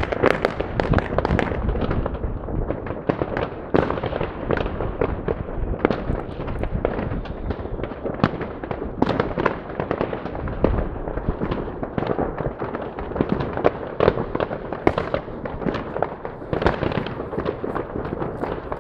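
Fireworks and firecrackers going off in large numbers: a dense, unbroken string of overlapping bangs and pops.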